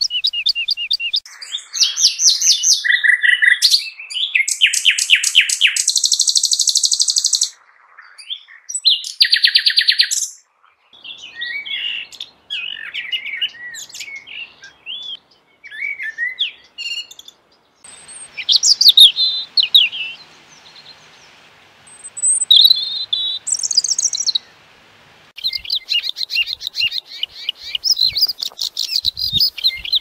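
Recorded songbird songs from several birds, cut one after another. Fast buzzy trills and rapidly repeated rattling notes come first, then shorter warbled phrases. A song over a faint hiss follows, and rapid high chattering comes near the end.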